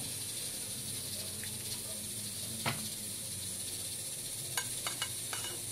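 A few light clicks and scrapes of a utensil against a glass baking dish as thick white cream sauce is spread over bread, one about halfway through and a quick cluster near the end, over a steady background hiss and low hum.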